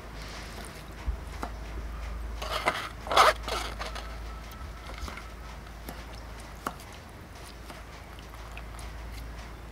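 Hands squeezing and kneading wet grated coconut in a plastic strainer, making squelching and crunching sounds as coconut milk is pressed out into a steel pot. A short, louder burst of handling noise comes about three seconds in.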